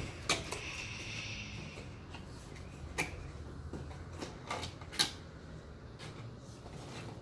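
The packaging of a CPU cooler being opened and handled. A rustling slide of cardboard or plastic runs for about a second and a half near the start. A few sharp clicks and taps follow, the clearest about three and five seconds in.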